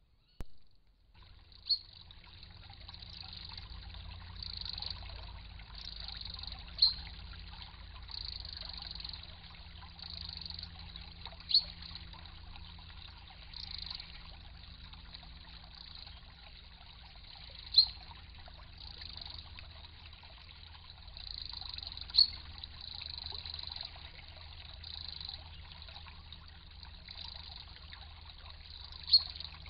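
Shallow stream trickling and rippling over stones, picked up by a trail camera's microphone and starting about a second in. Six short, sharp clicks stand out at irregular intervals of a few seconds.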